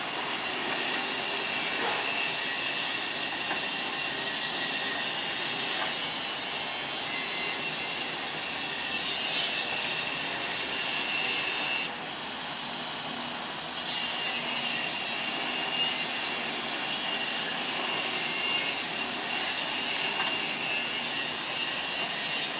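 Heavy construction machinery running steadily, with a high, even whine over the engine noise. The sound dips for a moment about halfway through, then returns.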